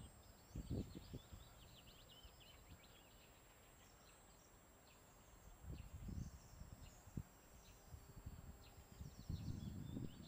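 Faint chirps and twitters of several small songbirds, thickest in the first two seconds and again near the end. Soft footsteps on a leaf-strewn dirt path thud now and then underneath.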